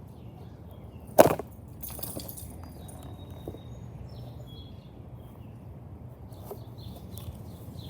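A single sharp bang about a second in, from a homemade airsoft landmine going off, followed by a brief scattering rattle. Faint birdsong in the background.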